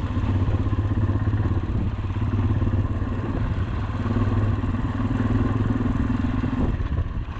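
Motorcycle engine running steadily under way, with some clatter from the ride; the engine eases off briefly near the end.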